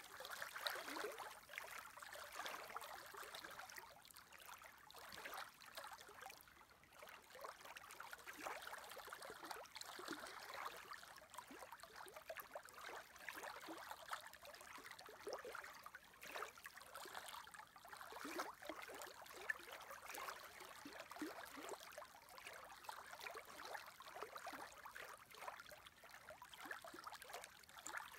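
Small wind-driven lake waves lapping and gurgling. It is faint, with irregular little splashes several times a second.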